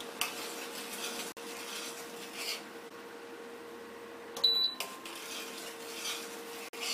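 A steel spoon scraping and stirring jaggery syrup in a steel pan on an induction cooktop, over a steady hum. About four and a half seconds in, a short high beep as a button on the cooktop's control panel is pressed.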